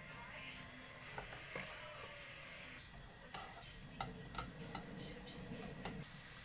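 Long cooking chopsticks clicking and scraping against a nonstick frying pan as sliced onion is stirred in hot oil: a string of light, irregular clicks over a faint sizzle that grows louder near the end.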